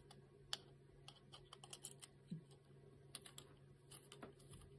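Faint, scattered clicks and ticks of a small screwdriver and screw against 3D-printed plastic parts while the screw is lined up with its hole.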